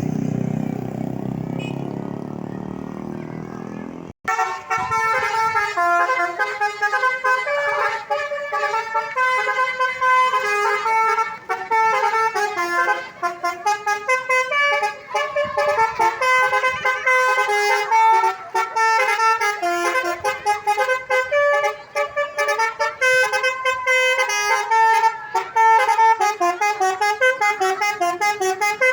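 Road traffic rumbling for about four seconds, then, after a sudden break, a bus's telolet "basuri" multi-tone air horn plays a long melody of quick, changing notes.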